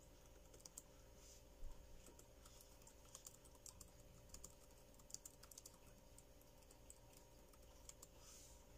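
Faint typing on an ASUS VivoBook laptop keyboard: quick runs of key clicks with short pauses between them, and fewer keystrokes for a couple of seconds past the middle.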